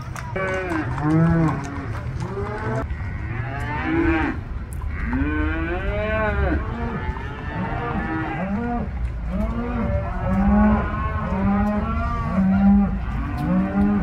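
A herd of cattle mooing almost without pause, many calls overlapping, each rising and falling in pitch, over a steady low rumble.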